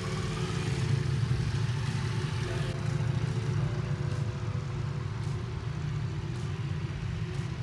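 Ducati Multistrada V4's V4 engine running steadily at low revs while the motorcycle is ridden slowly across grass.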